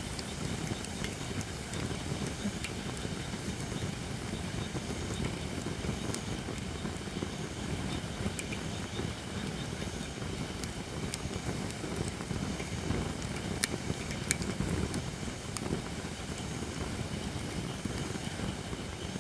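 Campfire of holly wood burning, with a steady low rush of flame and scattered sharp pops and crackles, a few louder ones around the middle.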